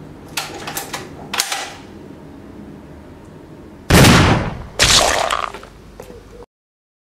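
A few short clicks of a scoped rifle being handled, then two loud rifle shots about a second apart, each a sharp crack that trails off briefly.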